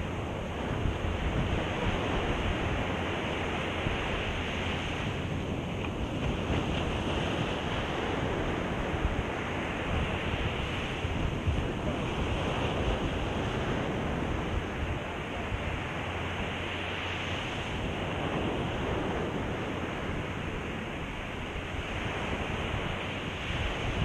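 Surf breaking and washing up a sandy beach, swelling and easing every few seconds, with wind buffeting the microphone.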